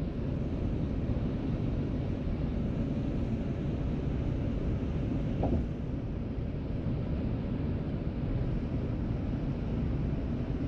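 Steady road and engine rumble heard inside a moving car.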